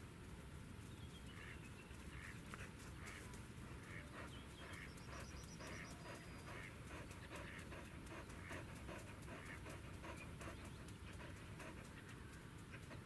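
A dog panting quietly and steadily, about two quick breaths a second.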